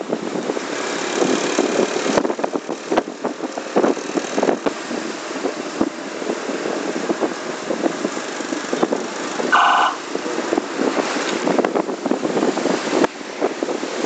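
Road traffic and engine noise close by, with rattles and knocks throughout, and a single short vehicle horn beep about ten seconds in.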